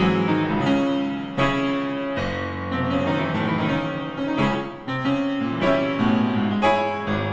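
Background piano music, with chords struck about once a second.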